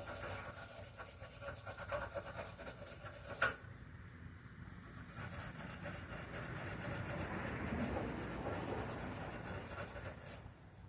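Metal battery bus bar being scrubbed clean: a fast run of rasping strokes for the first few seconds, a sharp click, then softer, steadier rubbing.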